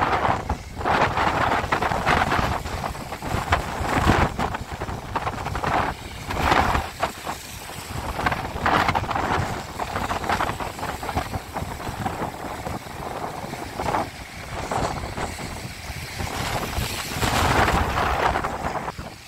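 Gale-force wind buffeting the phone's microphone in uneven gusts, with cars hissing past on the rain-soaked road.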